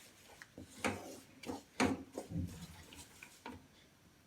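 A spoon clicking and knocking against a pan while crushed jaggery melts over low heat: a string of short, irregular taps.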